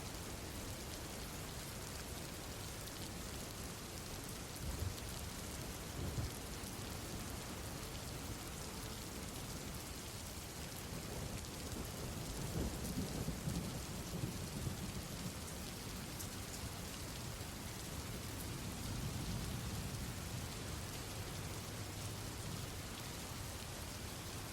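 Steady rainfall with low rumbles of distant thunder swelling around the middle and again later.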